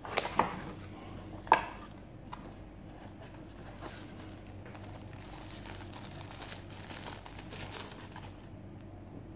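Cardboard box being opened by hand: a few sharp clicks and knocks in the first two seconds, the loudest about 1.5 s in, then rustling and crinkling of the paper wrapping as the device is unwrapped, dying away shortly before the end.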